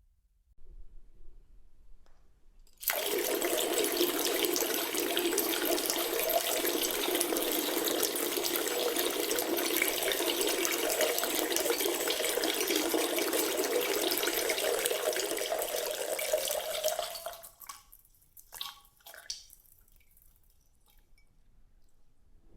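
Synthetic sound effect of a person peeing into a toilet: after a few faint sounds, a steady stream of liquid splashing into the bowl water starts suddenly about three seconds in, runs for about fourteen seconds and stops, followed by a few last drips.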